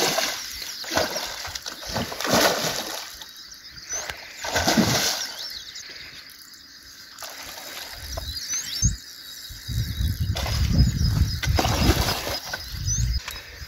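Hooked carp thrashing at the surface, throwing up a series of splashes over the first five seconds or so. A low rumble fills much of the second half.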